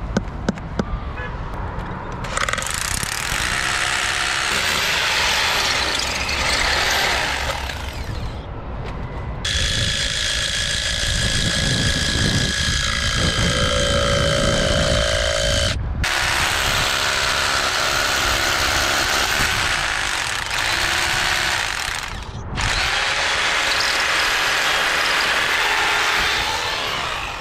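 A power tool running in four long bursts of several seconds each, each switched on and off sharply, with a steady whine during the second burst.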